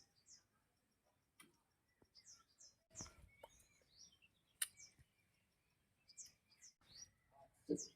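Faint bird chirps, short high notes coming every second or so, with a few sharp knocks, the loudest about halfway through.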